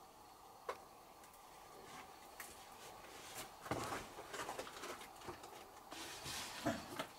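Faint scuffing and clicking of footsteps and handholds on rock as a man climbs down through a narrow rock crevice, with scattered knocks busiest from about halfway on.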